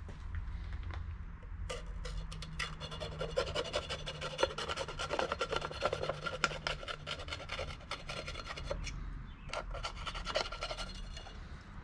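Hobby knife cutting a paper template stuck to a brake rotor: quick, dense scratching strokes that start about two seconds in and stop near the end.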